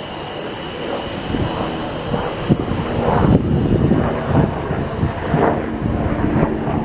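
A passenger train running through the station, its rumble building about three seconds in, with irregular knocks from the wheels on the track.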